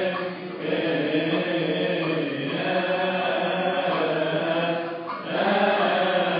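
Congregation and deacons singing a Coptic Orthodox liturgical chant together: a sustained, many-voiced hymn with brief breaks between phrases, about half a second in and near five seconds.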